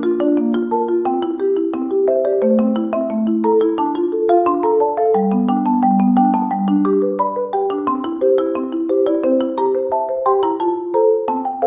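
Background music: a bouncy melody of quick, short struck notes over a lower moving line.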